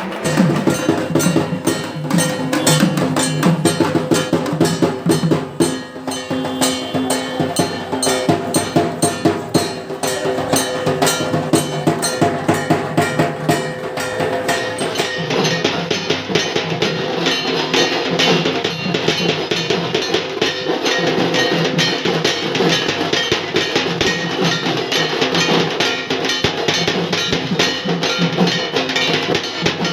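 Loud, fast percussive music dominated by drums, with dense rapid strokes and a clacking, bell-like beat.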